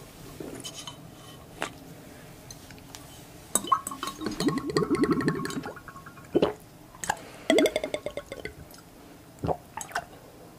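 Slurping and gurgling as a drink is sucked up through the glass straw of a novelty drinking glass, in two bouts of rapid bubbling sucks with a few short clicks between them.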